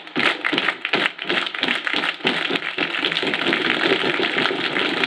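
Many hands clapping in a quick, uneven beat, merging about three seconds in into continuous crowd applause.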